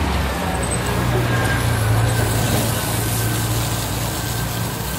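Steady engine drone with a constant hiss, from the motorised equipment used to hose down the sidewalk, a little louder about two seconds in.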